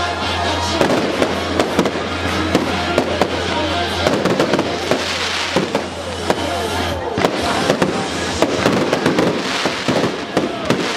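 Fireworks display: aerial shells bursting in rapid succession, a dense run of bangs and crackles, with music playing underneath.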